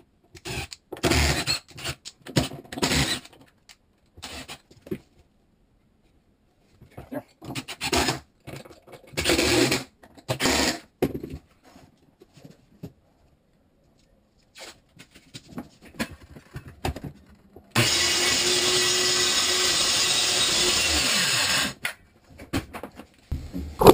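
Cordless drill-driver running in short bursts, driving screws into a wooden ledger board. Near the end a circular saw runs steadily for about four seconds, cutting through the edge of a hardwood floor.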